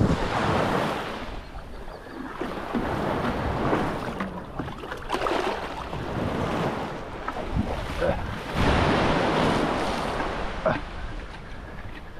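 Small surf waves washing in over the shallows in several swells, with wind rumbling on the microphone.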